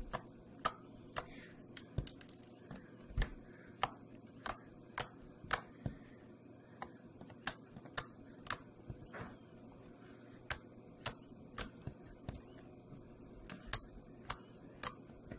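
Glossy teal white-glue slime being poked, pressed and folded by fingers, giving off sharp little clicks and pops at irregular intervals, about one or two a second.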